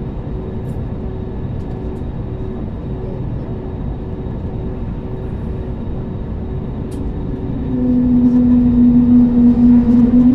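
Airliner engine and cabin rumble just after takeoff clearance. About eight seconds in, a steady engine tone comes in and grows louder as takeoff thrust is applied.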